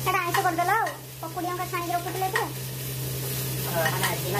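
Food sizzling and frying in a pan on a gas stove while a metal spatula stirs and scrapes it. A voice is heard over it at times, mostly in the first half.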